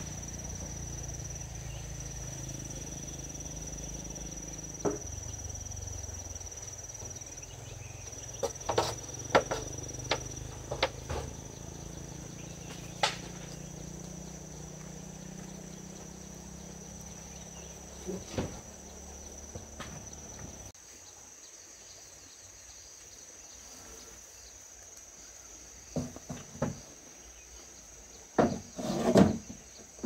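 Insects, likely crickets, making a steady high-pitched drone, with scattered sharp knocks and clacks from handling or work, several close together near the end. A low background rumble stops about two-thirds of the way through.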